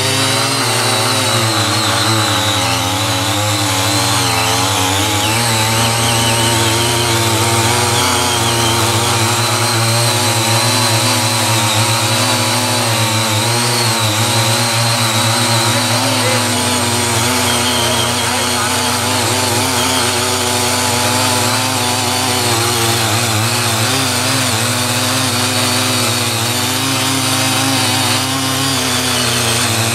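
Small engine of a CY50 walk-behind garden tiller running continuously under load, its pitch wavering slightly as the rotary tines till and weed the soil.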